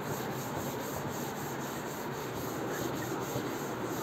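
Chalkboard duster scrubbed back and forth across a chalkboard, erasing chalk writing in quick repeated strokes.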